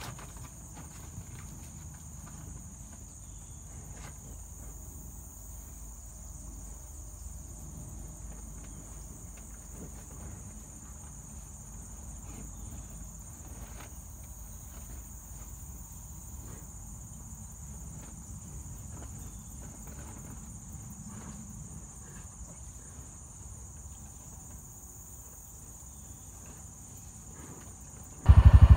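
Steady high-pitched trilling of insects in the grass, with a faint low rumble beneath. Right at the end a much louder low noise cuts in suddenly.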